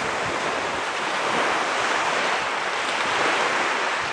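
Steady rushing noise with no distinct events, of the kind made by surf, fast water or wind.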